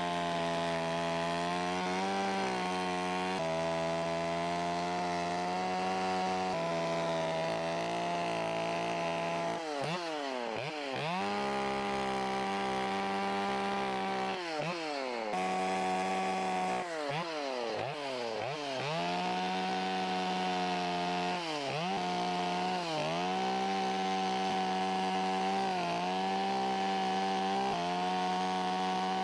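Chainsaw running at high revs while carving wood. From about ten seconds in, its pitch dips and recovers several times as the chain is worked into the wood.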